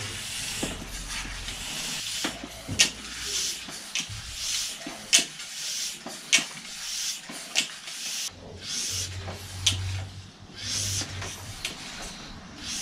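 Hand work on a bicycle's rear wheel as it is fastened in the frame: scattered sharp metallic clicks and knocks, with short rasping strokes in between.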